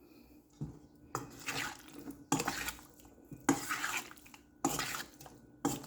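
Chicken pieces being stirred into a soy-sauce marinade in a bowl: irregular wet stirring strokes with light knocks against the bowl, about one a second.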